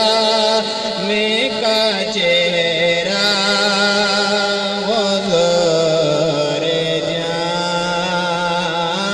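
A man singing a naat (Urdu devotional poem in praise of the Prophet) into a microphone, drawing out long, wavering, ornamented notes.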